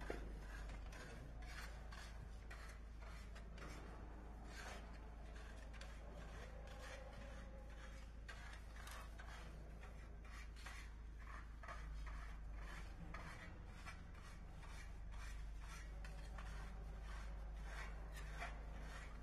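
Small steel trowel scraping and pressing repair mortar into a honeycomb void in concrete, in many short, irregular scraping strokes, over a steady low hum.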